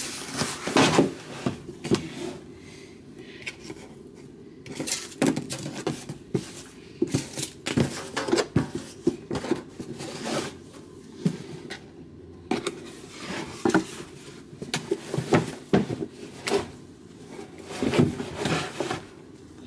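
A rigid cardboard gift box being unwrapped by hand: irregular taps, knocks and scrapes as the ribbon is pulled off and the lid and the paper inside are handled.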